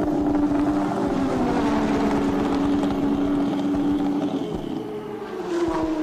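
Formula One car engine running at a steady pitch, dropping off a little about four and a half seconds in, then a short blip of the throttle near the end.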